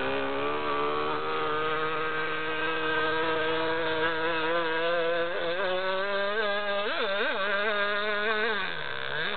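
MVVS 6.5 cc two-stroke model engine of a radio-controlled speedboat running flat out, a high buzz with its pitch wavering. Its pitch jumps up sharply for an instant a few times around the middle, then dips and comes back up near the end.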